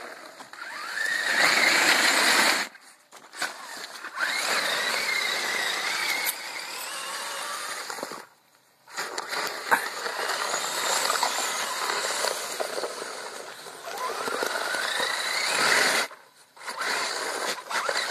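Radio-controlled monster truck with a snow plow blade driving through wet slush. Its motor whines, rising in pitch each time it speeds up, over the hiss and splash of tyres and blade in the slush, and it stops briefly a few times.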